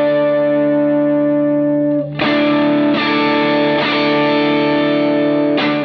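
Distorted electric guitar played through an EHX Nano POG polyphonic octave pedal and a Line 6 HX Stomp. A chord rings out, a new chord is struck about two seconds in, and it is re-struck a few more times.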